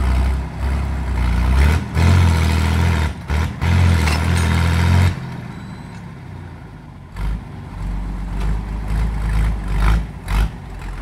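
Old tractor engine running hard under load as it pulls on a rope to tear out tree roots. About five seconds in it drops back to a lower, steady run, then surges briefly a few times near the end.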